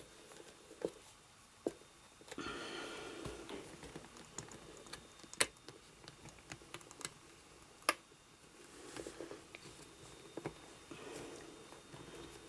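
Irregular small clicks and taps with soft rustling from hands working an elastic cord through a plastic connector tube in a vinyl doll's shoulder.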